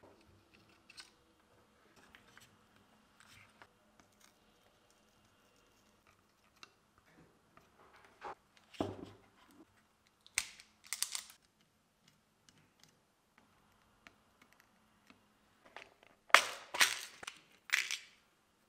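Quiet workbench handling sounds: light clicks and taps, a knock, then a couple of crisp clicks from an automatic wire stripper stripping speaker wire about ten seconds in. Near the end a clear plastic parts box of crimp terminals is handled and rattled, the loudest sounds here.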